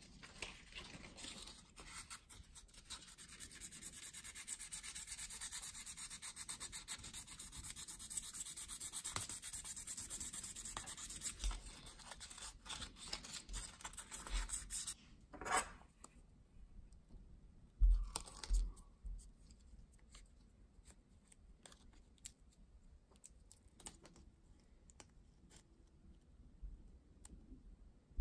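Sandpaper rubbed over a small balsa wood lure body in quick strokes, a steady scratchy hiss for about thirteen seconds that stops just past halfway. After it, scattered light handling clicks and a couple of knocks.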